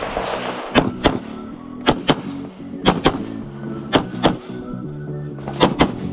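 CZ Shadow 2 9 mm pistol fired in five quick pairs of shots, double taps about a quarter second apart, with roughly a second between pairs, over background music.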